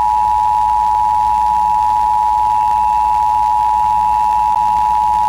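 Emergency Alert System attention signal: two tones at 853 and 960 Hz sounding together, held steady and unbroken on a radio broadcast, marking the start of a required monthly test. A faint low hum sits beneath it.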